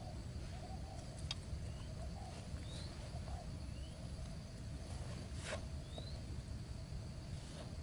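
Outdoor ambience: a steady low rumble with a few short, rising bird chirps. Two faint clicks of string and bamboo sticks being handled, about a second in and again near the middle.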